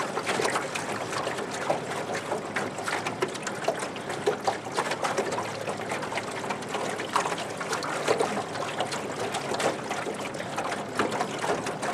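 Lake water lapping and trickling close by, with many small, irregular splashes.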